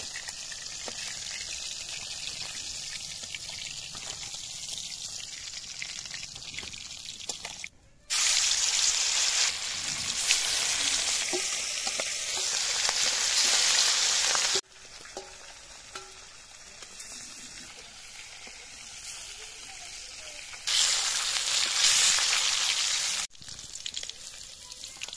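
Rohu fish pieces sizzling as they fry in hot oil in an iron kadai. The sizzling turns much louder twice, for several seconds each time, and drops back suddenly.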